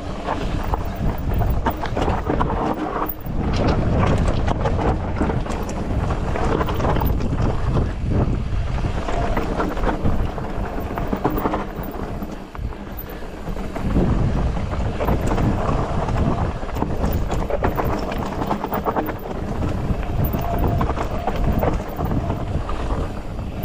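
Polygon Siskiu T8 mountain bike descending a steep, loose, rocky trail: tyres crunching over gravel and rock with constant quick rattles and knocks from the bike, and wind buffeting the microphone.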